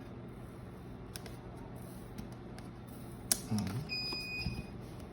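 Unboxing handling: a sharp click about three seconds in and a few low thumps, then a short, steady electronic beep lasting about a second.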